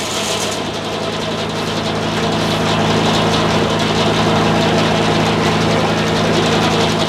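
Sawmill engine running steadily. The noise of the blade cutting wood dies away about half a second in, leaving the engine alone.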